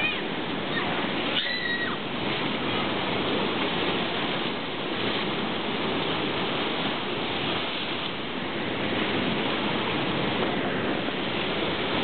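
Rough sea surf breaking over granite rocks and washing up a concrete slipway: a continuous rush of churning water at a steady level.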